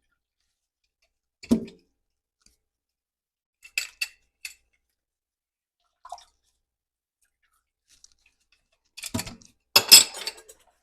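Kitchen dishes and utensils being handled: a dull knock about a second and a half in, a few light clinks around four seconds, and a louder clatter of knocks near the end.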